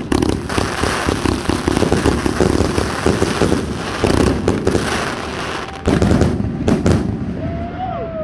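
Grogu 232-shot firework cake firing dense volleys: rapid launches and crackling star bursts. A louder surge of shots comes about six seconds in, then the firing thins and dies away near the end.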